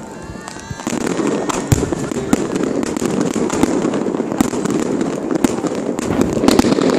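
Fireworks going off: thin whistles glide in the first second, then a dense crackling of many small bursts sets in, with sharper bangs scattered through it.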